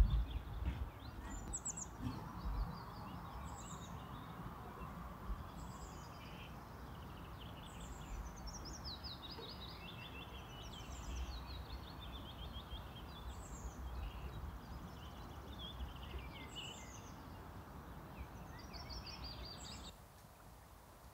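Small birds chirping, with short high calls repeated throughout, over a steady low outdoor rumble. It opens with a loud low rumble, and the ambience drops away suddenly about a second before the end.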